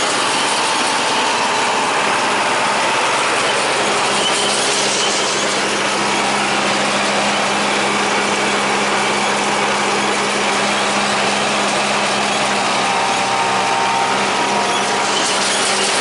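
John Deere 3020 tractor running steadily under load with a John Deere 336 small square baler working behind it, baling hay.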